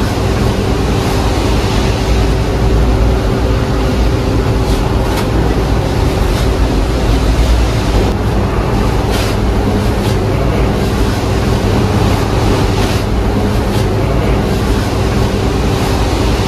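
Steady loud rumble with a constant mechanical hum, broken by a few short clicks and clatters.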